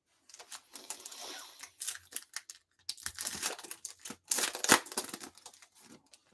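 Foil wrapper of a Bowman Sapphire trading-card pack crinkling and tearing as it is opened by hand, in uneven crackles. The loudest crackle comes about four and a half seconds in.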